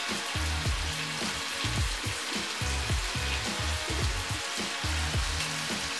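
Food frying in hot oil in a pan, a steady sizzle, with background music with a steady beat underneath.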